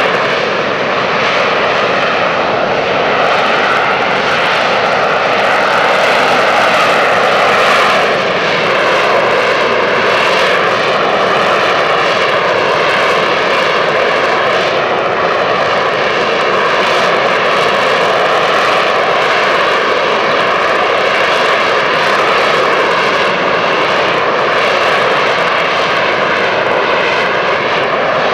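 AV-8B Harrier II's Rolls-Royce Pegasus turbofan running loud and steady, a jet roar topped by several whining tones that drift slightly up and down in pitch.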